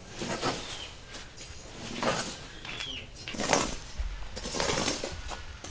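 Rice grains spread out to dry on the ground being raked, a short hissing scrape with each stroke, about five strokes.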